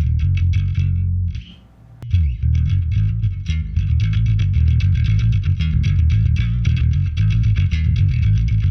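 Electric bass played through a vintage MTI-era Ampeg SVT tube bass head into an Ampeg 8x10 cabinet, a busy run of notes with a deep tone. The playing stops briefly about a second in and starts again after a sharp click at about two seconds.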